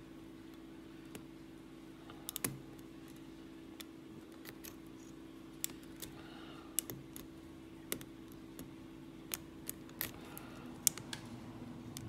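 Scattered, irregular small metallic clicks and ticks of a lock pick working the spool pins inside a Lockwood 334 brass padlock, over a faint steady hum.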